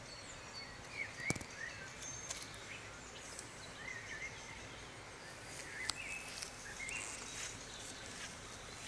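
Faint outdoor ambience with scattered short bird chirps and a couple of sharp clicks.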